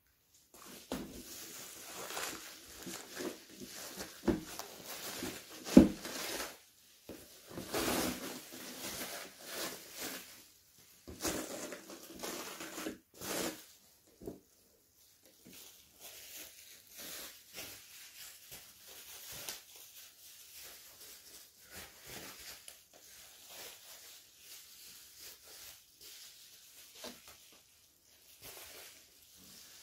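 Plastic bubble wrap rustling and crinkling as it is worked off a cardboard figure box, with two sharp knocks about four and six seconds in, the second the loudest. The rustling is busiest in the first half and turns lighter and sparser after about fifteen seconds.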